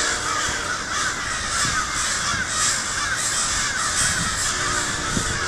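A large flock of crows cawing all at once, many overlapping calls forming a steady, continuous din.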